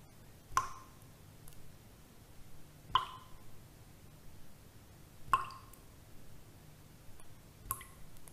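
Water drops falling at an even pace, four in all, about two and a half seconds apart, each a sharp plop with a short ring. A faint steady low hum lies underneath.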